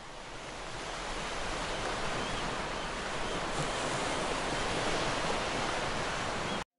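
Ocean surf breaking and washing over rocks, a steady rushing noise that fades in over the first couple of seconds and cuts off abruptly near the end.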